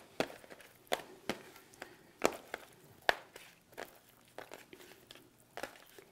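Raw whiting being turned over and laid back down on a metal sheet pan by hand: a string of irregular light taps and soft wet slaps against the tray. The sharpest come about a second in and around two and three seconds in.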